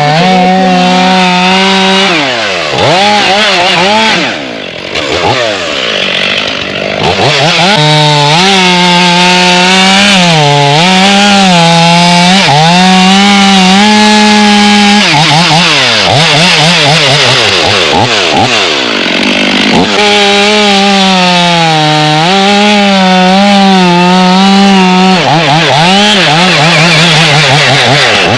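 Chainsaw running hard and cutting wood, its pitch dipping as the chain loads up in the cut and climbing again as it frees, with the throttle eased off briefly a few seconds in and again about halfway through.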